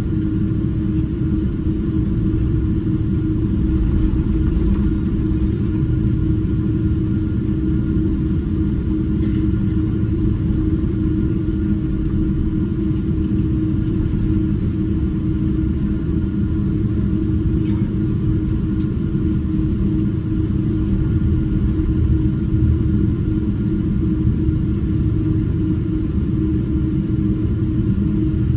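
Boeing 777-200ER airliner cabin noise: a steady low rumble of the jet engines and airflow, with an even hum running through it.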